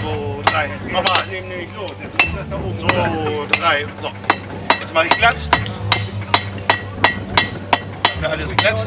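Blacksmith's hand hammer striking a small iron rod held in tongs on an anvil: a run of sharp, ringing metal-on-metal blows. They are sparse at first and become a steady beat of about four blows a second from the middle on.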